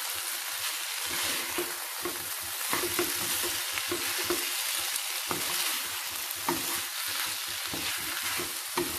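Noodles, shredded vegetables and chicken sizzling in oil in a kadhai, stir-fried with a wooden spatula that scrapes and taps against the pan at an irregular pace.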